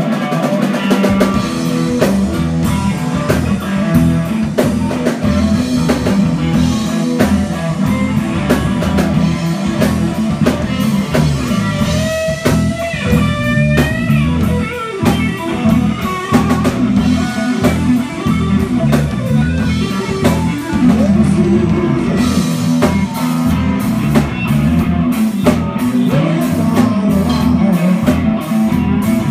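A rock band playing live with no vocals: electric guitars over a drum kit. Notes bend in pitch about halfway through, and the cymbals hit more steadily from about three quarters of the way in.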